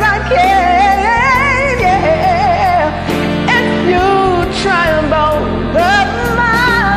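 A woman singing a slow melody with vibrato over a karaoke backing track of bass and a steady hi-hat.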